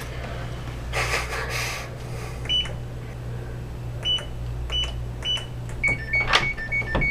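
Electronic keypad door lock beeping once for each of four button presses, then giving a quick run of beeps on two alternating lower notes near the end. A rustle comes about a second in.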